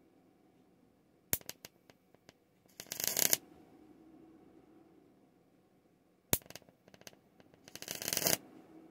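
High-voltage arc across a 1 cm spark gap between two wire electrodes, fed by a small ferrite transformer and drawing over 100 watts. Twice a sharp snap and a few scattered crackles strike the gap, and each time about a second and a half later a crackling arc burst lasts about half a second.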